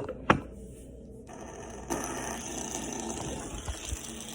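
Two sharp clicks, then a small fidget spinner whirring steadily from about two seconds in.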